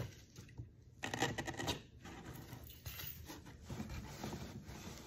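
Hands rubbing and scratching at a package's wrapping, working at it without getting it open.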